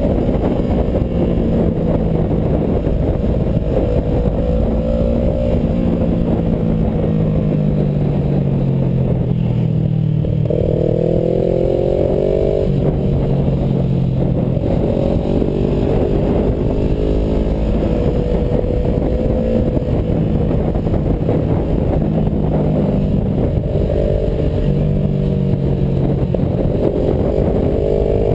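Motorcycle engine running under the rider at changing revs. Its pitch climbs and drops back in steps through the bends, with one clear rev-up about halfway through. Wind rushes over the handlebar-mounted microphone throughout.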